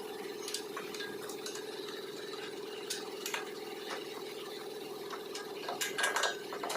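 Metal tools and parts clinking and tapping now and then during work on a car's front suspension, with a few quick clinks close together near the end, over a steady hum.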